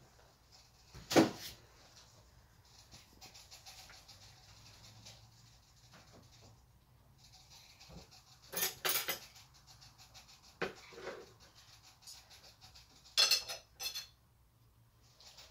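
Pet rat bruxing: a faint, fast chatter of teeth grinding that goes with her boggling, the sign of a content, relaxed rat. Four louder bursts of metallic clinking and rattling break in, about a second in, around the middle, and near the end.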